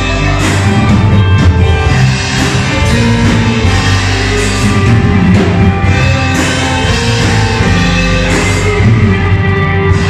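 Live band playing a rock-style song at full volume: bass guitar, drum kit, keyboards and guitar together, with a heavy, steady low end.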